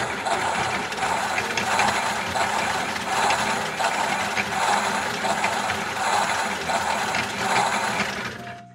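Toy washing machine's small electric motor spinning the drum, a dense whirring rattle that swells about once a second, then winding down and stopping near the end.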